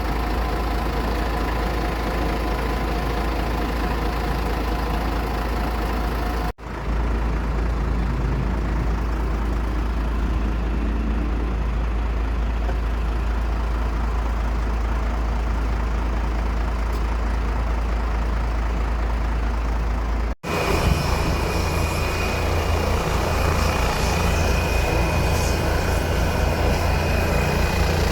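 Aircraft engines running steadily, heard as three stretches of continuous rumble broken by two abrupt cuts. In the last stretch a steady high whine rides over a fast, even low pulsing.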